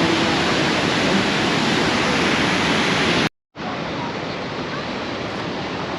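Water rushing through a dam spillway, a loud steady rush. A little over three seconds in it cuts out for a moment and comes back quieter.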